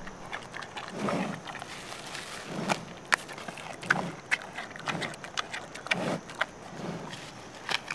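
Giant panda chewing and crunching food: soft chewing strokes about once a second, with sharp crisp crunches scattered among them.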